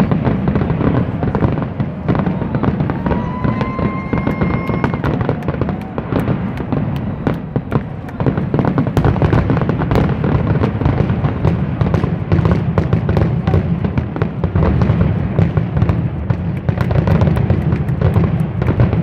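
Fireworks display: aerial shells bursting in a rapid, unbroken barrage of bangs and crackles over a deep continuous rumble. About three seconds in, a rising whistle climbs and then holds for a second or two.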